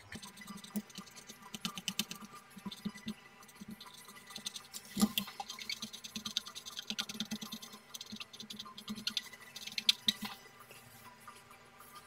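Old, rock-hard thermal paste being rubbed and scraped off a graphics card's GPU die: a fast, uneven run of small scratchy clicks, with louder knocks about five and ten seconds in. The scraping dies away near the end.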